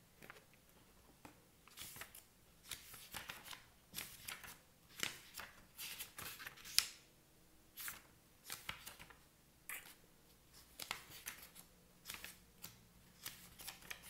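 Pages of a book being flipped through by hand, a string of irregular papery swishes starting about two seconds in, as someone searches for a particular page.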